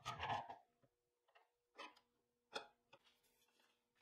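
Handling rustle, then a few sharp metal clicks, as a screwdriver shaft is seated upright between the soft jaws of a bench vise and clamped.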